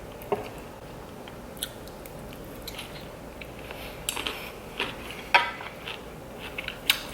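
Eating sounds: scattered small clicks and clinks of utensils against a dish, irregular and sharp, the loudest a little past five seconds in and again near the end.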